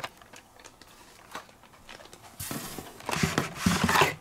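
Blister-carded Hot Wheels packages handled and pulled from a cardboard case. A few light clicks come first, then from about halfway the plastic blisters and card backs rustle and crinkle densely.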